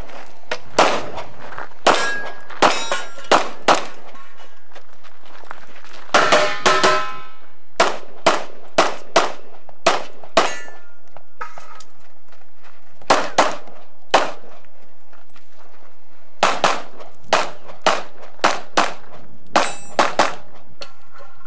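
A pistol fired in quick strings of shots, about thirty in all, with short pauses between the strings. Several hits set steel targets ringing with a short clang.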